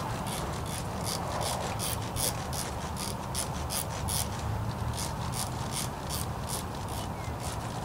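Riflescope elevation turret being turned down click by click, a steady run of light clicks roughly three a second. The scope is being dialed down to bring a point of impact that is hugely high back onto the target.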